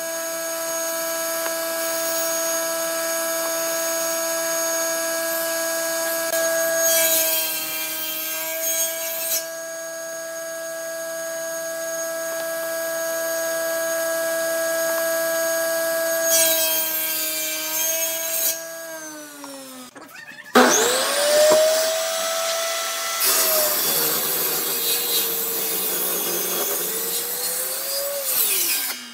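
Table saw running with a steady high motor whine, making two short cuts through wood, its pitch dipping slightly under each cut. About two-thirds through, it winds down and is started again. It then makes a longer cut through a glued-up wooden block, its pitch sagging under the load.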